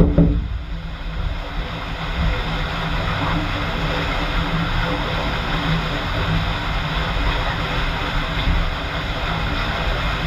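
Steady rushing of water running down the water slide beneath the closed trapdoor capsule, with a low rumble, and a brief thump right at the start.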